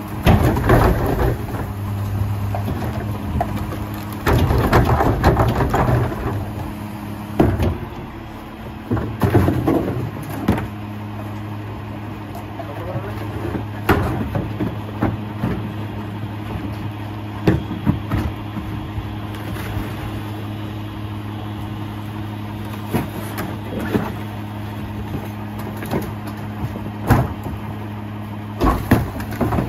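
Mack LR rear loader garbage truck engine idling steadily. Over it come repeated knocks and clattering bangs as plastic garbage carts are tipped and banged out into the rear hopper.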